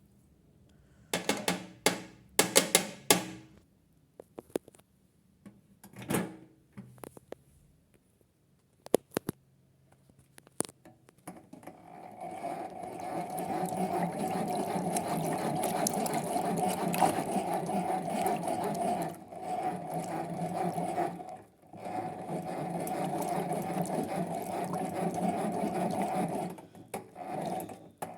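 Clicks and knocks as the Hoovermatic twin-tub toy washing machine is handled, then its small electric motor starts about eleven seconds in and runs with a steady buzz. It cuts out briefly once and stops near the end.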